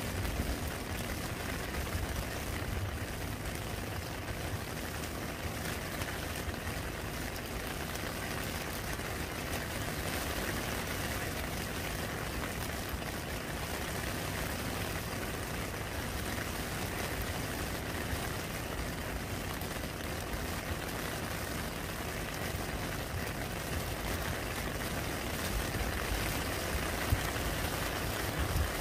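Rain falling steadily into a muddy puddle, an even, unbroken patter of drops splashing on the water.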